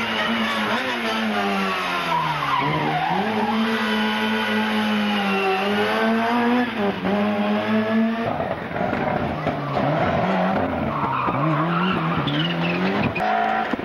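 Rally car engine running hard at high revs, dropping briefly twice before climbing again, then revving up and down in quick succession near the end.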